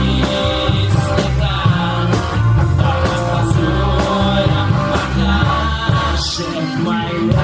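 A rock band playing an instrumental passage: drums keeping a steady beat under a bass line and sustained guitar chords.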